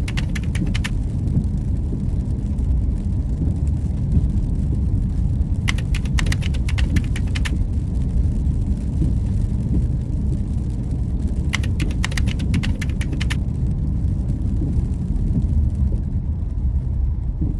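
Steady low road rumble of a car in motion, heard from inside the cabin. Three short runs of rapid clicking, each lasting one to two seconds, come about every six seconds.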